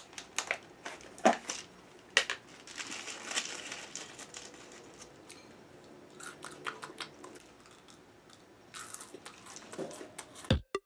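Crinkling and clicking as a small packet or container is handled and opened, then a person chewing and crunching a mouthful of food, with sparse small crunches.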